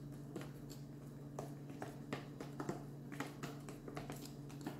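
Cake batter being beaten by hand in a bowl: light, irregular clicks and taps of the utensil against the bowl, over a steady low hum.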